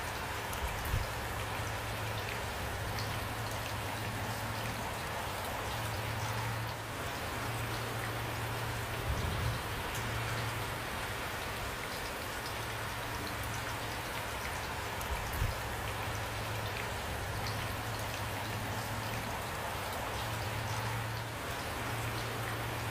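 Steady rain, with a dense patter of drops falling on a surface. A few heavier low thuds stand out, about a second in, around the middle and again later.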